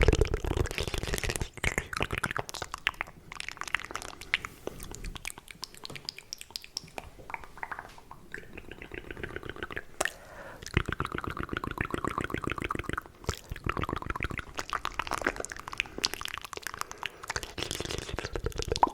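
Fast, aggressive mouth sounds made close to the microphone: rapid wet clicks, smacks and tongue pops in quick trains.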